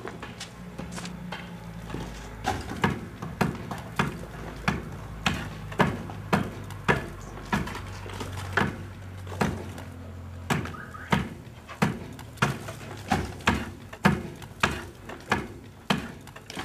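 Steady, repeated blows against a brick wall as it is knocked apart by hand: one sharp knock roughly every half second, starting about two seconds in.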